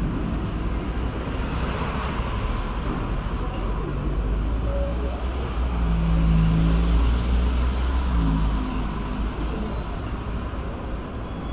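Steady low outdoor engine rumble, a mix of distant jet aircraft and road traffic. It swells about six seconds in and eases off toward the end.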